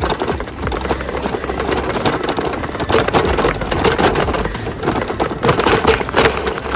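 A bike riding down a rough dirt trail: a dense, continuous rattle of clicks and knocks as it goes over bumps, over a steady low rumble.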